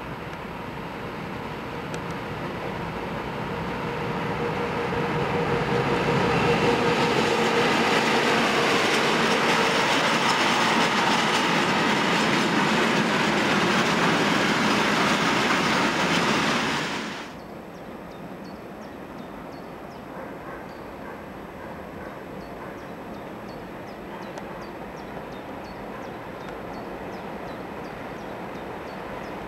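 A freight train hauled by a Deutsche Bahn electric locomotive passing close by, wagons rumbling and clattering on the rails. The noise builds over the first six seconds, stays loud for about ten, and cuts off abruptly about 17 seconds in, leaving a quieter steady rumble.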